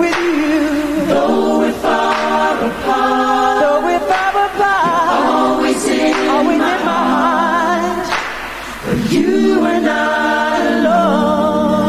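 A choir singing without accompaniment, holding long chords with wavering pitch.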